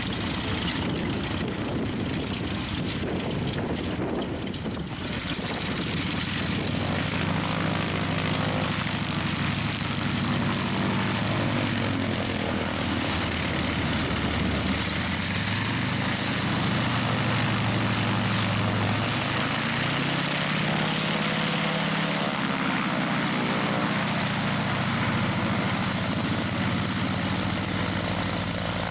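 Radial engine of a Max Holste Broussard running at low power as the aircraft taxies past, its pitch rising and falling. Wind buffets the microphone for the first few seconds.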